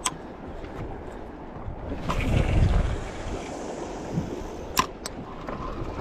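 Wind buffeting the microphone over open sea, with water lapping around a small boat; the rush swells louder about two seconds in. Two sharp clicks near the end.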